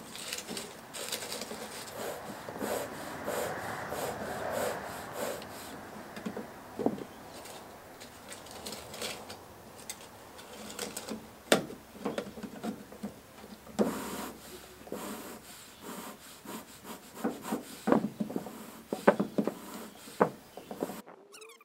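Bee smoker being lit and worked: dry leaves rustle and crackle as they are packed into the metal canister, then a series of irregular sharp knocks and clicks as the hinged nozzle lid is shut and the bellows are pumped.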